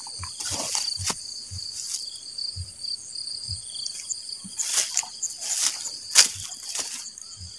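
Insects trilling steadily at a high pitch, with footsteps thudding and grass and leaves rustling underfoot as someone walks through vegetation. The loudest rustle comes about six seconds in.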